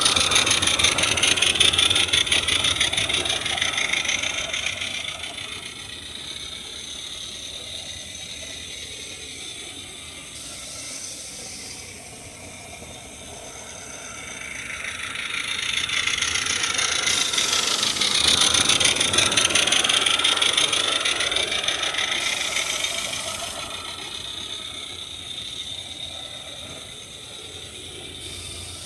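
Small live-steam garden locomotive (a Roundhouse Sammy fitted with a chuffer) chuffing and hissing as it runs, with the rattle of its running gear. It is loud as it passes close at the start, fades as it goes round the far side, and swells again for a few seconds past the middle.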